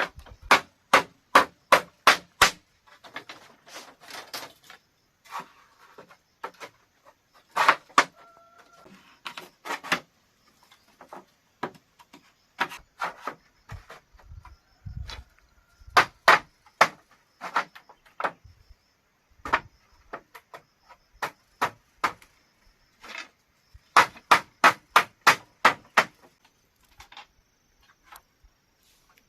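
Sharp repeated blows on bamboo or wood during building work, struck about three times a second in runs of several strokes with pauses between.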